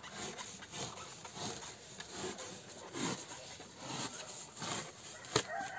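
Polystyrene foam being cut by hand, a blade rubbing and rasping through it in uneven strokes, with one sharp click about five seconds in.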